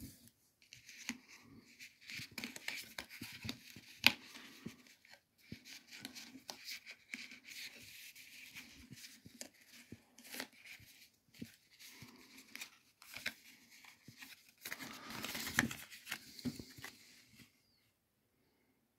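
Cardboard perfume sample cards and packaging being handled: soft rustling and scraping with small irregular taps and clicks, and a longer, louder rustle about fifteen seconds in.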